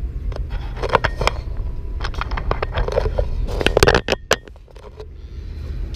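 Handling noise of a small action camera being turned and repositioned: a run of irregular scrapes, clicks and knocks, then quieter after about four seconds, over a steady low rumble.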